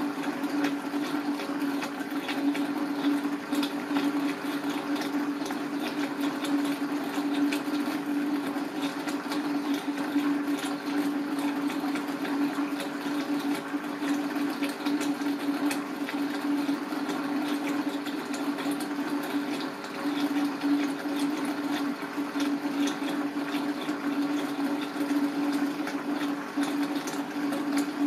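A steady low hum with a continuous watery noise and fine crackling over it. The level stays even throughout.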